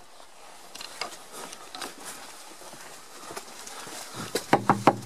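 Footsteps on a stone path, then a rapid run of knuckle knocks on a wooden door, about five a second, starting near the end.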